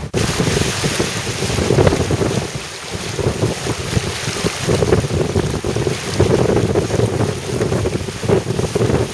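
Wind buffeting the microphone over the rushing and splashing of water along a sailing yacht's hull as it sails.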